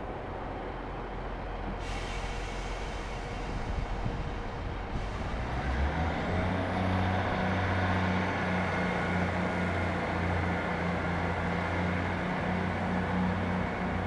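Diesel train engine running. A deep, steady engine note comes in about six seconds in and stays loud, with a faint rising high whine above it as it builds.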